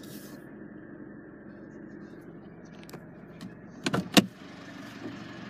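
Steady low hum inside a car's cabin, with a quick cluster of sharp clicks about four seconds in.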